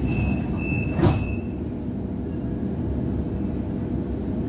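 Steady low rumble inside a Waratah electric train carriage, with another train passing close alongside. A high pulsing tone stops about a second and a half in, and a single brief clunk comes about a second in.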